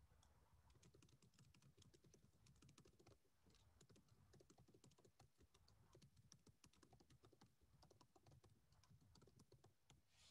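Faint computer keyboard typing: a steady run of quick key clicks as a sentence is typed.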